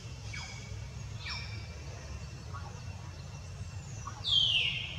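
Macaque squeals: two short high squeaks falling in pitch in the first second and a half, then a louder, longer squeal sliding down about four seconds in, over a steady low rumble.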